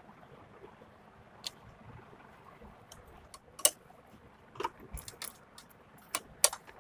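Irregular sharp clicks and taps, a few seconds apart and two of them loud, from handling a sewing machine and blouse fabric at the presser foot. There is no steady stitching run.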